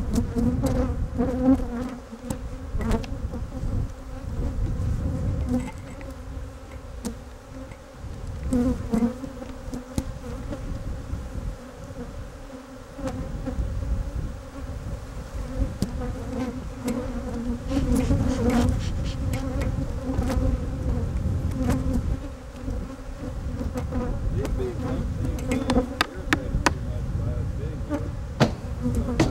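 Honeybees buzzing in a steady hum around an opened hive, with a low rumble underneath and scattered knocks and clicks as the hive's frames are worked.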